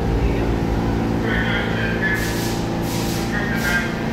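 New York City subway train running, a steady low rumble and motor hum. From about halfway comes a regular clatter, about one and a half beats a second.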